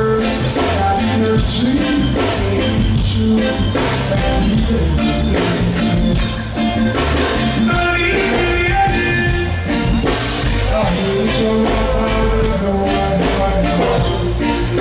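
Live band playing a slow song with a steady drum-kit beat, bass and guitar, with a voice singing at times.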